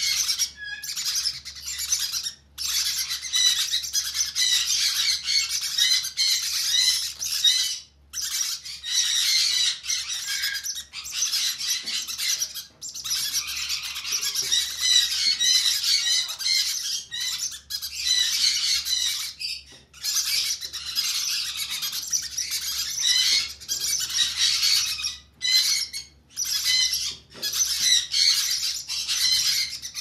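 Conure chicks giving harsh, rapid begging squawks while being hand fed: a near-continuous chatter broken by brief pauses.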